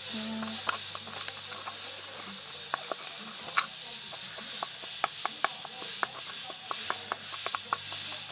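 Spoon stirring a cornstarch and dish-detergent mixture in a pot for slime, with many quick, irregular clicks and scrapes of the spoon against the pot over a steady hiss.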